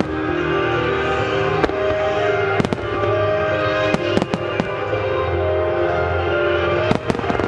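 Aerial firework shells bursting in a string of sharp bangs, about ten of them in small clusters, over music playing with the display.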